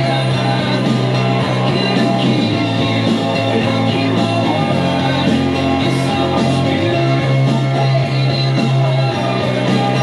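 Rock music playing, with held bass notes that shift briefly in the middle.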